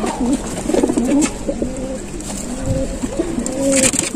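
A flock of domestic pigeons cooing together, many overlapping wavering low coos.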